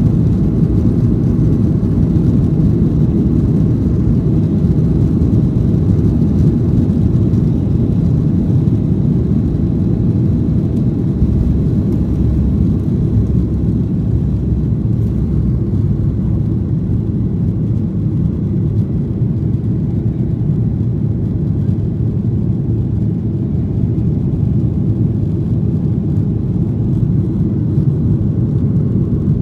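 Cabin noise of a Boeing 737 climbing out after takeoff: the jet engines at climb power and the rush of air over the airframe, heard inside the cabin as a steady, loud, low rumble.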